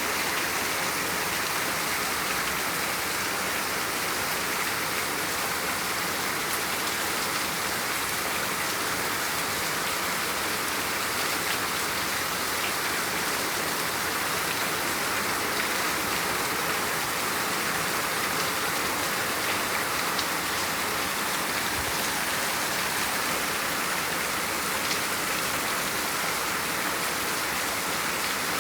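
Steady rainfall: an even hiss of rain falling on surfaces, with scattered individual drops ticking through it.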